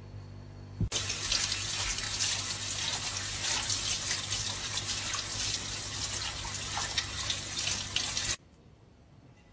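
Kitchen tap running into a sink, the stream splashing over a plate being rinsed under it, with small knocks as the plate is handled. The water starts with a click about a second in and cuts off abruptly near the end.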